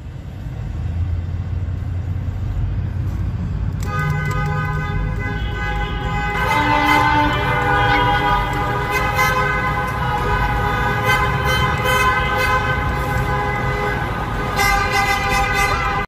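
Many car horns honking together inside a concrete freeway tunnel, heard from inside a car: a low engine and road rumble for the first few seconds, then from about four seconds in a din of overlapping, sustained horn tones that grows thicker and keeps on to the end.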